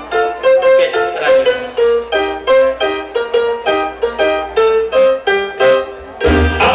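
Music: a keyboard melody of separate struck notes, about three or four a second. Just at the end a heavy bass comes in as a salsa track begins.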